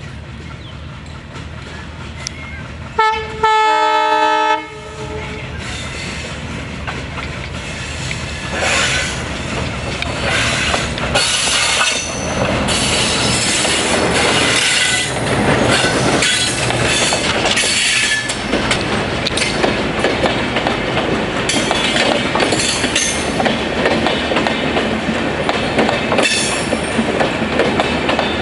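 Diesel locomotive sounds its horn, a short toot then a blast of about a second and a half, as it approaches. It then passes close by, and its coaches roll past with wheels clacking over the rail joints and now and then a high metallic wheel squeal.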